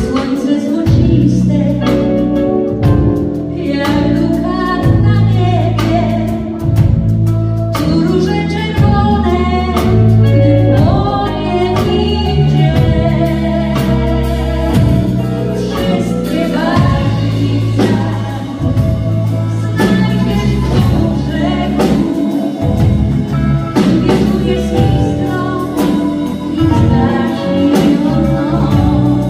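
Live pop band playing with drums, bass guitar and guitars, with singing over it.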